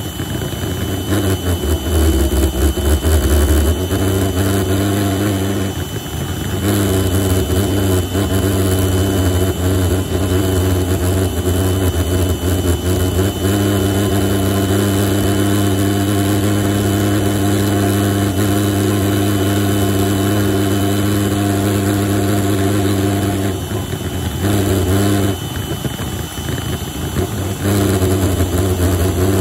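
Homemade propane-fuelled pulsejet engine running with a steady, loud low buzz while an electric air pump blows into its intake. It falters briefly about six seconds in and stumbles several times near the end as the propane feed is adjusted.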